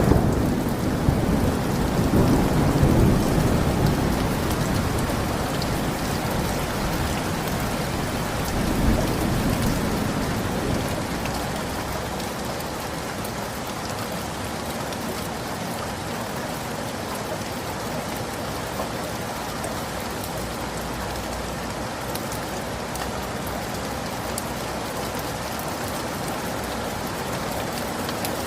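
Rain falling steadily, with a rolling rumble of thunder through the first several seconds that swells again about nine seconds in and dies away, leaving the rain alone.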